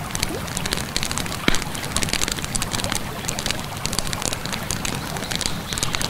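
Bonfire crackling with irregular pops, over a steady rush of flowing river water.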